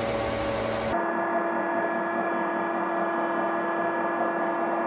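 Computerized Elna Lotus sewing machine winding a bobbin under its own motor: a steady whirring hum, its tone changing abruptly about a second in.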